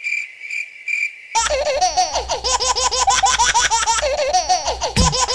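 A cricket-chirping sound effect, a few evenly spaced chirps, for about the first second. Then a loud, high-pitched, rapid laughing sound effect breaks in and keeps going.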